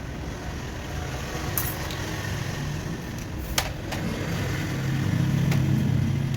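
Low rumble of motor vehicle traffic, swelling near the end as a vehicle passes, with a few sharp clicks.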